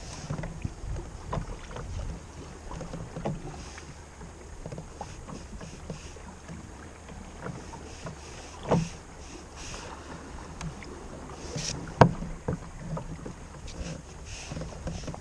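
Water lapping and trickling around a fishing kayak, with light wind on the microphone and scattered small knocks. A sharp knock comes about twelve seconds in, with a smaller one a few seconds earlier.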